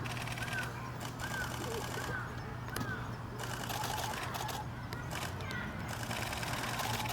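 A small bird giving short chirping calls, repeated several times in quick succession and again later, over a steady low hum and outdoor background noise.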